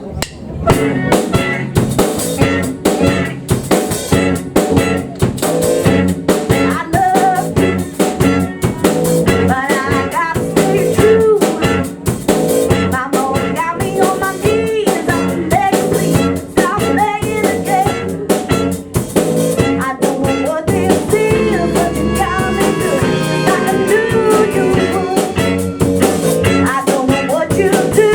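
Live band playing an upbeat blues-rock number, with a drum kit keeping a steady driving beat under guitar.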